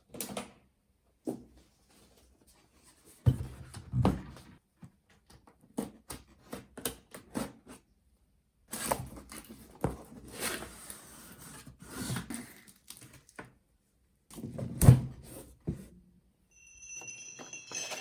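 Objects being handled at close range: scattered clicks, rubbing and rustling, with a couple of dull thumps, the loudest about fifteen seconds in.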